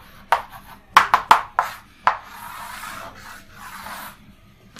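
Chalk on a blackboard: a few sharp taps and short strokes while writing, then a longer steady scraping as lines are drawn around the answer.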